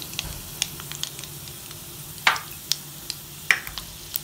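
Tempering (tadka) spices, dry red chillies with cumin, chana dal, urad dal and mustard seeds, sizzling in hot oil with a steady frying hiss and a few sharp pops.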